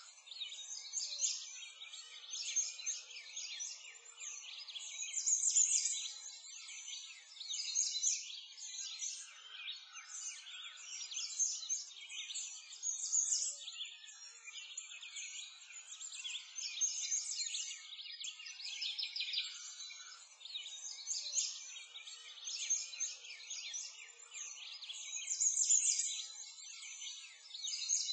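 Birdsong ambience: many small birds chirping over one another continuously, in high, quick calls that swell and fade every few seconds.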